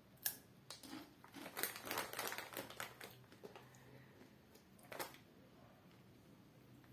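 Sharp, irregular crunching of Takis rolled tortilla chips being bitten and chewed: one crack near the start, a dense run of crunches from about a second and a half to three seconds in, and another crack about five seconds in.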